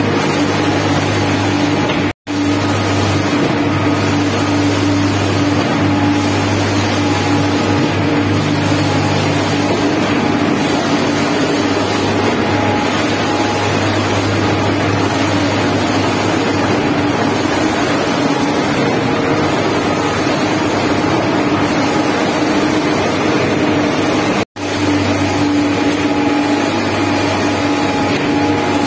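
Heavy shotcrete machinery running steadily, a constant engine drone with a low hum. The sound is broken by two brief silences, about two seconds in and near the end.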